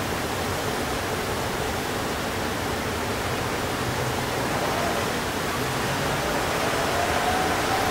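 Steady New York City street ambience: a constant wash of distant traffic noise, with a faint tone rising gently near the end.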